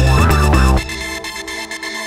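Electronic background music. Heavy bass and rising synth sweeps cut out abruptly a little under a second in, leaving a quieter, thinner high layer.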